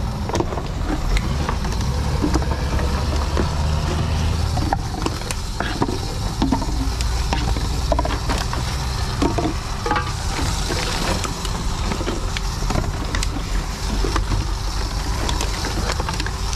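Reverse vending machine running with a steady low hum while plastic drink bottles are fed into it one after another, with scattered clicks, knocks and the crinkle and clatter of plastic bottles throughout.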